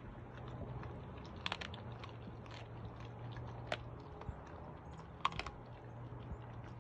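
Doberman chewing and biting a half-frozen raw skinned squirrel: irregular crunches and clicks of teeth on meat and bone, with sharper cracks about a second and a half in, near the middle and about five seconds in, over a low steady hum.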